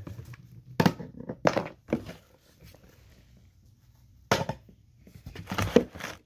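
Dull thumps and knocks of hands and objects set down on a wooden floor: one about a second in, another half a second later, a louder one just past four seconds, and a quick cluster near the end.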